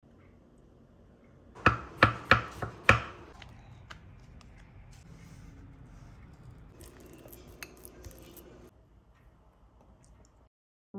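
Kitchen clatter: five sharp knocks in quick succession a couple of seconds in, like a knife or utensil striking a board or dish, then softer scattered clicks of utensils and dishes.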